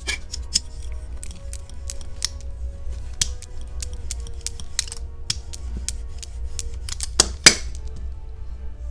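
Plastic Play-Doh tools and containers being handled: a run of small clicks and taps, with two sharper clicks close together about seven seconds in, over background music.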